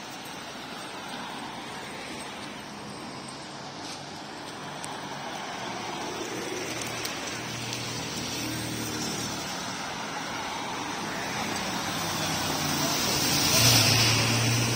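Steady road traffic, then a double-decker city bus approaching and drawing up close. Its diesel engine grows louder and peaks near the end with a short hiss.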